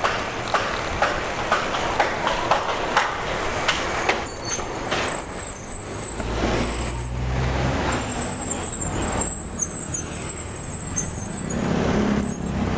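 Road traffic heard while riding along a city street. A regular clicking about twice a second runs through the first few seconds, and a passing vehicle's low engine rumble comes about halfway through.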